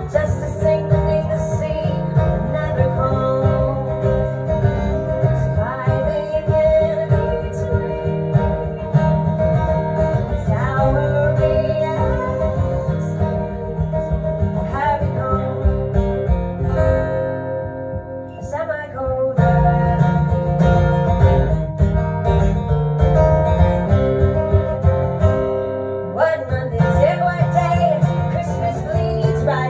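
A woman singing to her own strummed acoustic guitar. The playing thins out briefly just past the middle, then comes back fuller.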